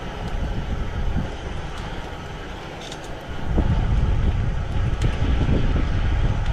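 Gusty wind buffeting the microphone: an irregular low rumble that gets clearly louder about three and a half seconds in.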